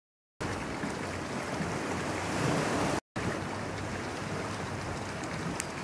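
Steady outdoor background noise, an even rush with no distinct events, starting a moment in. It breaks off in a brief dead-silent gap about three seconds in, where two shots are cut together.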